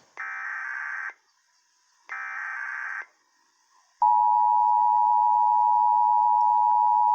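Emergency Alert System SAME header: two digital data bursts about a second long each, a second apart. About four seconds in, the steady two-tone EAS attention signal starts, the opening of a Required Monthly Test alert.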